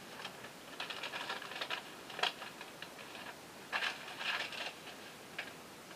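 Faint, scattered rustling and light scratching: several short, soft noises a fraction of a second each.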